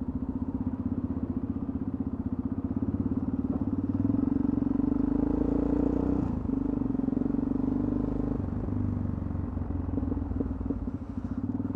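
Yamaha XT660X single-cylinder engine pulling away under way at low speed, the engine note building for a few seconds and dipping briefly about six seconds in.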